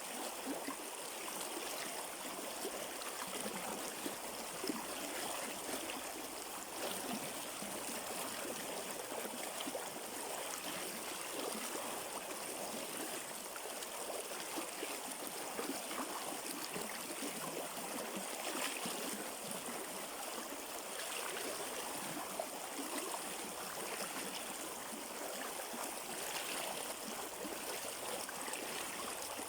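River water running over rocks, a steady rushing with small gurgles and splashes.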